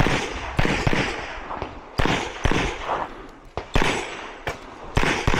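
Gunshots fired in quick, irregular strings: about ten shots, some in close pairs about half a second apart, each with a short echoing tail.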